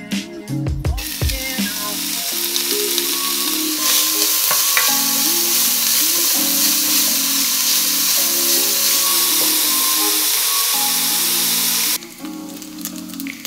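Diced bacon sizzling as it fries in a pot, stirred with a wooden spoon. The sizzle starts about a second in and drops off sharply near the end.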